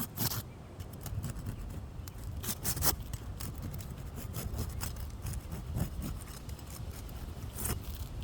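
Stiff, dried-out asphalt three-tab shingles being pried up with a roofer's hatchet, scraping with several sharp cracks as their adhesive seal strips break loose.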